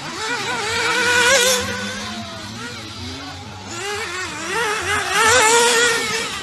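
Radio-controlled cars' engines buzzing at high revs, their pitch wavering up and down with the throttle. The buzz swells twice, about a second in and again near the end, as cars pass close.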